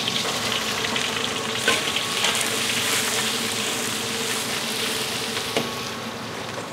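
Onion dropped into hot oil in a pan, sizzling with a dense frying hiss and a few small clicks; the sizzle eases slightly toward the end.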